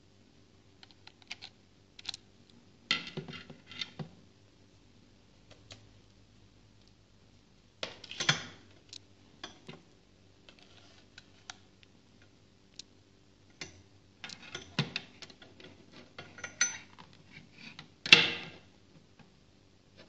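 Handling noise of small electronics: irregular plastic clicks, taps and rustles as a USB tester is plugged into a power bank and a USB cable is handled and plugged in. A louder scrape and rattle comes near the end.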